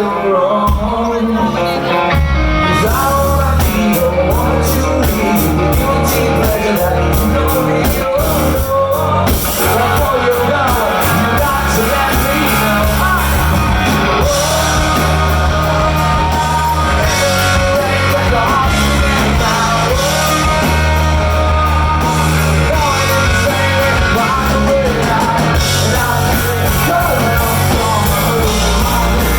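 Rock band playing live, with electric guitar, bass and drums under a lead vocal.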